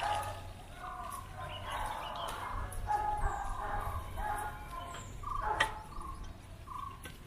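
Birds calling and chattering, many short overlapping calls, over a steady low rumble from riding a bicycle. A single sharp click about five and a half seconds in.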